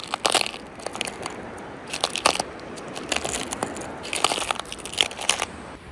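Footsteps in shoes crunching over ground littered with sticks and twigs: irregular sharp crunches, a few each second.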